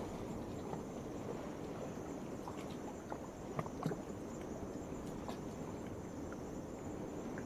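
Night insects chirring steadily in a thin high band over the wash of waves on a rocky shore, with a few sharp ticks near the middle.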